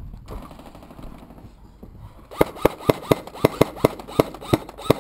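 Airsoft gun firing a quick string of single shots, about three to four a second, each a sharp crack with a short ringing twang; the firing starts about halfway through.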